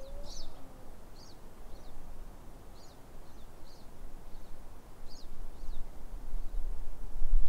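Wind buffeting the microphone in a low rumble that grows stronger toward the end, with a small bird chirping over it: short, high chirps repeating about once a second.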